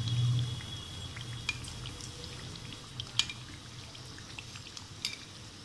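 Kachoris deep-frying in hot oil in a metal kadai, sizzling softly, with scattered sharp clicks as a metal spoon turns them over against the pan. A low hum runs underneath, loudest at the start and fading.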